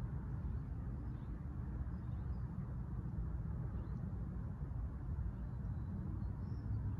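Steady low outdoor rumble of wind and distant traffic, with a few faint bird chirps.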